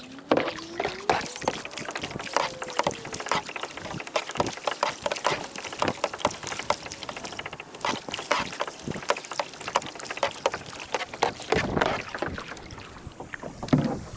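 Kayak on the water: irregular sharp knocks and clicks against the hull, with water splashing and lapping.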